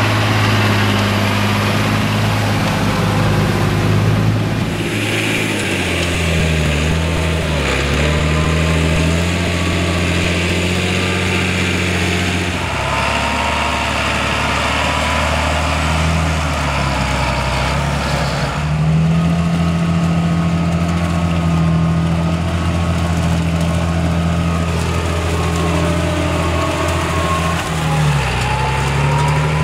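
John Deere 8200T tracked tractor's 8.1-litre inline six-cylinder diesel engine running under heavy load while ploughing through deep mud. Its pitch dips and recovers a few times.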